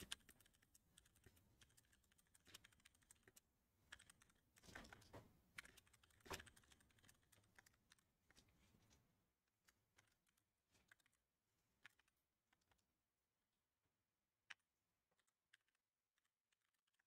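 Faint typing on a computer keyboard in scattered short clicks, busiest in the first six or seven seconds, then only a few isolated keystrokes.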